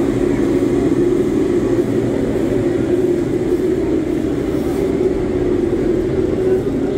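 Steady, loud roar with a constant hum from the blower-fed burner firing a large frying kadai.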